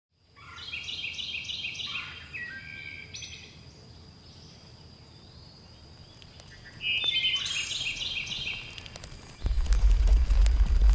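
A songbird singing outdoors: short phrases of quick repeated notes, one near the start and another about seven seconds in. Near the end a louder low rumble with scattered soft clicks sets in and becomes the loudest sound.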